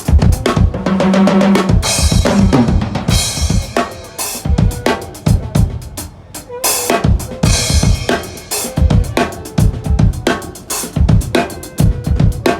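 A drum kit being played: bass drum and snare hits in a busy groove, with cymbal crashes ringing out several times.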